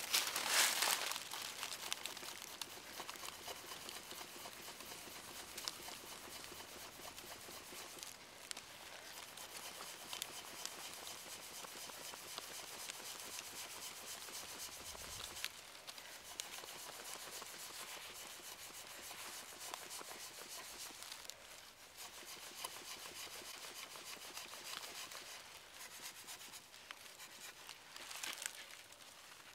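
Sharpened wooden point scraping and gouging along the weathered surface of a log, a dense crackling rasp. It is loudest just after the start and again near the end.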